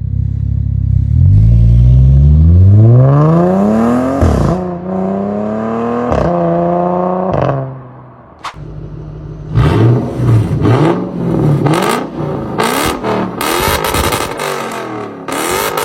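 Car engine accelerating hard, its pitch climbing steeply and dropping at two gear changes about 4 and 6 seconds in before the throttle lifts. After a short lull come a series of rev blips with sharp cracks from the exhaust.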